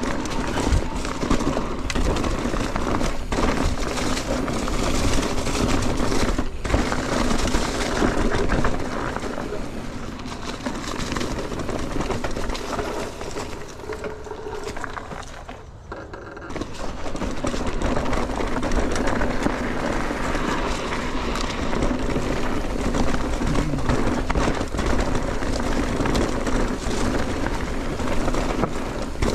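Mountain bike riding down a dirt singletrack trail: a steady rush of tyre and wind noise with occasional sharp clatters of the bike over roots and rocks. The noise eases briefly about halfway through, then builds again.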